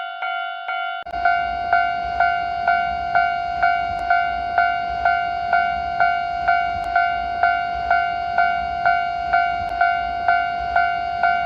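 Japanese railway level-crossing warning bell ringing, a steady pitched ding repeating about twice a second. About a second in the sound switches from a clean version to one with background hiss and a low rumble under it.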